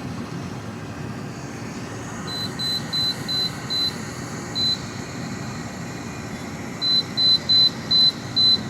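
GE dehumidifier running steadily at maximum, with short high beeps from its control panel as its buttons are pressed: a quick run of five beeps about two seconds in, one more a little later, and another run of five near the end. The beeps are the loudest sound.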